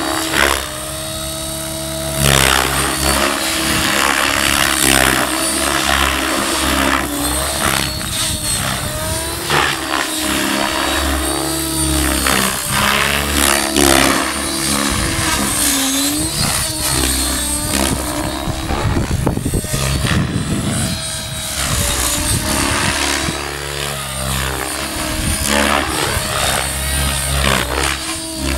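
Blade 700X electric RC helicopter flying aerobatics: rotor and motor whine running continuously, the pitch bending up and down as it manoeuvres and passes.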